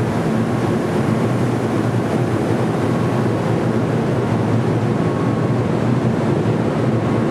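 Steady wind noise on the microphone over the low, even rumble of a container ship's deck, with a faint steady whine.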